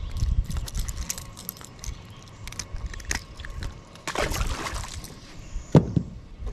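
Metal clicking and rattling of a crankbait's treble hooks and fishing pliers as a small fish is unhooked. About four seconds in, a short splash as the fish goes back into the water. A single sharp knock near the end.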